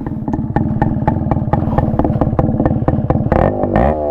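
Yamaha RX135's single-cylinder two-stroke engine running with the core removed from its silencer, giving a raw, open, rapidly popping exhaust note. Near the end another sound sweeps up and down in pitch over it.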